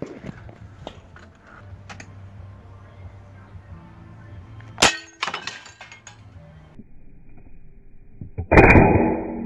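Sharp click about five seconds in; then, near the end, the suppressed shot of a Benjamin Bulldog .357 big-bore PCP air rifle hitting a tile target, which breaks. The shot is the loudest sound and dies away over about a second, not very loud for its calibre because of the suppressor.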